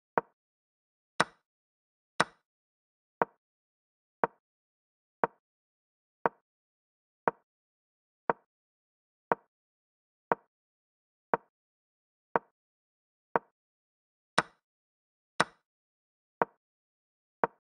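Chess.com's synthetic move sound: a short wooden click about once a second as each move of the game is replayed on the board. Four clicks are sharper and brighter, about one and two seconds in and twice near the end; these are the site's capture sound, as pieces are taken.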